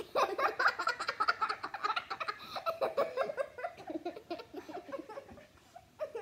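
Girls laughing in a run of quick giggles that fades out after about four seconds.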